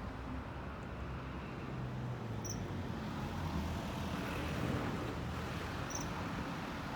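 Steady low traffic rumble, with two brief high-pitched calls of a common kingfisher, one about two and a half seconds in and one near the end.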